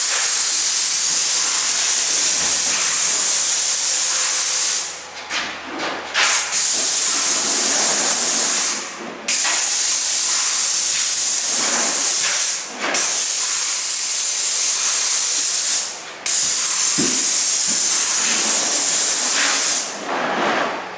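Airless paint spray gun hissing as it atomises water-based satin enamel onto window frames, in long passes of a few seconds each, cut off briefly between passes as the trigger is released.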